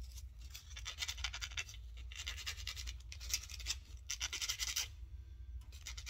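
Small piece of sandpaper rubbed quickly back and forth on freshly cut metal axle parts of a diecast toy car, taking the burrs off. It comes in several short spells of scratchy rubbing with brief pauses between them.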